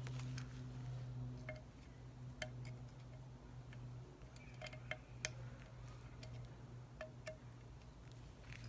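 Light metallic clinks and taps scattered through, with short ringing, as small steel valves, springs and a tool are handled on an automatic-transmission valve body, over a steady low hum.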